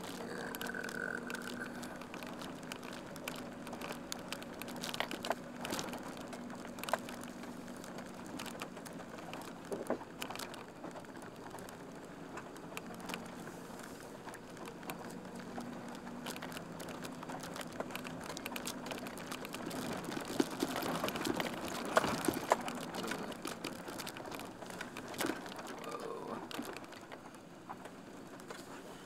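School van's engine running low and steady, heard from inside the cabin as it creeps across a rough prairie field. Scattered sharp clicks and rattles sound over it, with a busier run of crackling about twenty seconds in.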